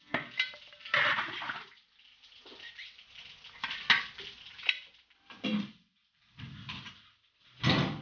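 Metal ladle scraping and clanking against a large iron wok as rinsed pork spine bones are scooped out and tipped into a bowl, in irregular bursts with sharp clicks.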